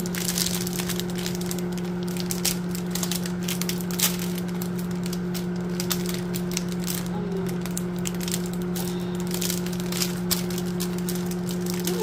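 Microwave oven running with a steady low hum while plastic cellophane wrap is crinkled and pulled off a pack of wooden waxing sticks, making many small crackles and clicks.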